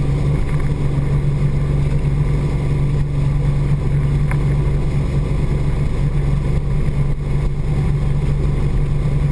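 Motorboat engine running steadily at speed, a constant low drone, with the rush of the boat's wake over it.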